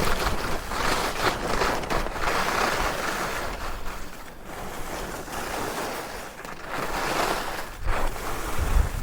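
Skis hissing over snow in repeated swells as the skier turns, with wind rushing across the microphone.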